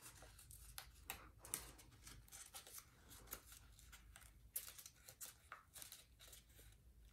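Faint rustling and crinkling of paper as hands fold and crease a thick, many-layered origami model: a string of soft, irregular crackles.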